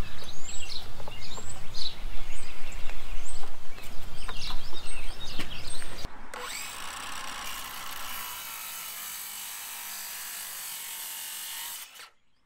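Birds chirping over a low outdoor rumble with a few knocks; about six seconds in the sound breaks off and gives way to a quieter, steady hiss.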